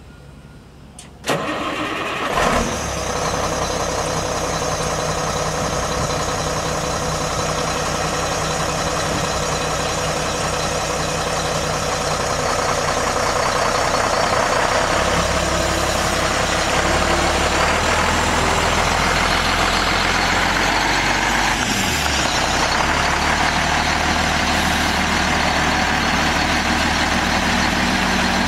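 Mack E7 12-litre inline-six turbo diesel of a 1999 Mack CH613 semi truck starting about a second in, then idling steadily.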